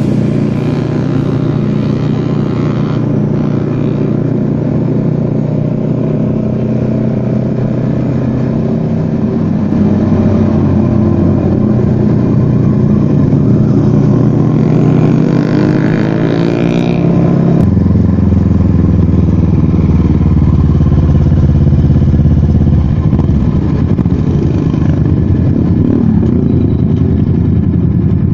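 Motorcycle engine running as it is ridden, heard onboard with wind rush. The engine note rises for a few seconds, then drops abruptly a little past halfway.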